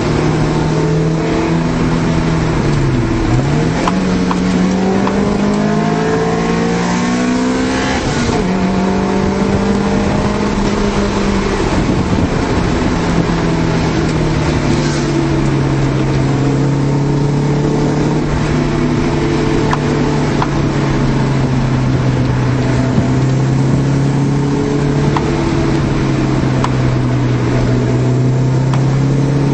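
Engine of a 1991 Honda Civic hatchback heard from inside the cabin under road and wind noise while driving. Its pitch dips and climbs again about three seconds in, rises to about eight seconds in and drops sharply, then holds a steady note from about fourteen seconds in.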